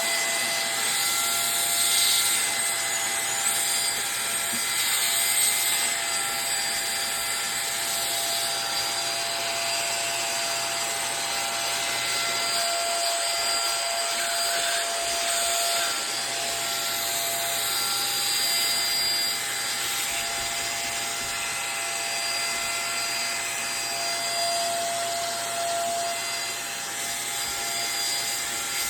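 Vacuum cleaner switched on and running steadily: a loud motor whine over the hiss of rushing air.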